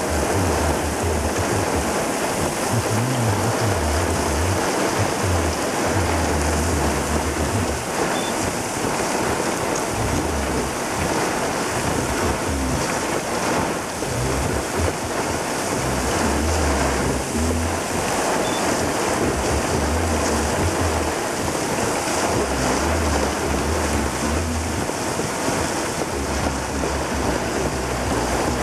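Rain falling steadily, a loud even hiss, with wind buffeting the microphone in irregular low rumbles.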